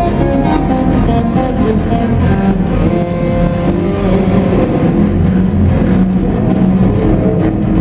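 Live rock band playing: electric guitar over bass and drums, with drum and cymbal hits keeping a steady beat.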